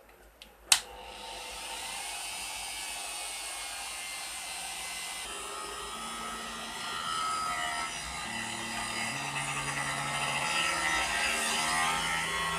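CNC router spindle running with a 1-inch fly cutter taking a light finishing cut, about 0.06 mm deep, across an aluminium board. A click about a second in, then the spindle's steady whirr and cutting hiss. From about five seconds in, the axis stepper motors whine in tones that step up and down as the machine moves.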